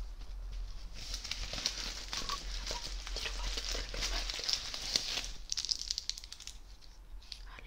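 Crinkly red plastic bag being crumpled and handled close to the microphone: a dense run of crackling that thins to scattered crackles after about five seconds.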